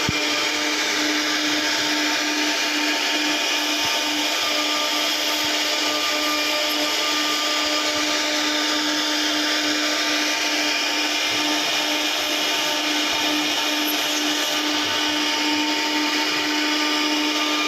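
CNC router spindle cutting MDF: a steady whine over a constant hiss, with no break or change.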